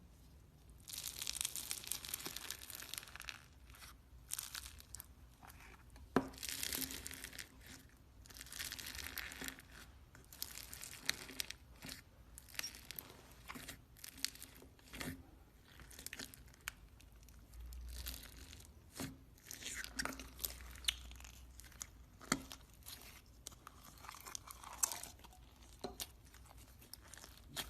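A brittle, crumbly material being crushed and broken up: irregular bursts of crisp crunching and crackling with many sharp snaps.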